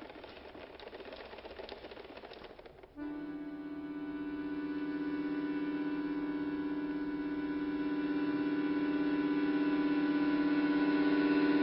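Two concert button accordions in contemporary music: a noisy, clicking texture for about three seconds, then a sustained dense chord enters suddenly and swells steadily louder.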